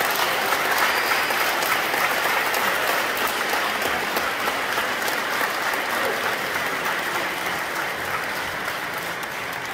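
Congregation applauding, a dense steady clapping that eases off a little near the end.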